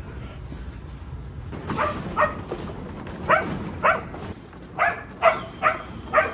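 Working sheepdog barking to drive sheep: about eight short, sharp barks in uneven groups, starting nearly two seconds in.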